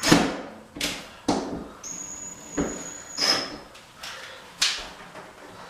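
Tools and hardware being handled while fixing a towel rail's mounting points: irregular sharp knocks and clacks, about six in all, with a thin high whine lasting about a second in the middle.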